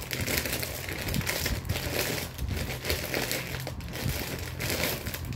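Plastic snack wrapper crinkling and crackling in irregular surges as it is handled.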